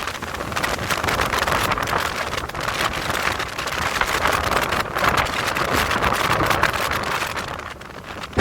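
Strong gusty wind buffeting a phone's microphone, surging and easing, with a brief lull near the end.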